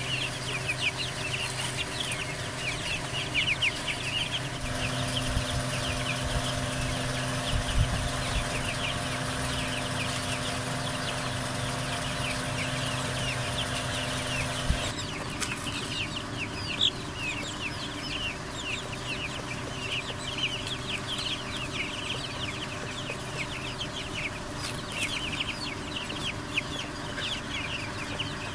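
A flock of young chicks peeping constantly, many short high chirps overlapping. A steady low hum runs underneath and cuts off suddenly about halfway through.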